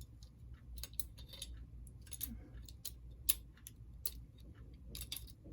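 Light clicks and taps of small metal and plastic model-train parts being handled while a motor is fitted into a locomotive chassis, with one sharper click about three seconds in.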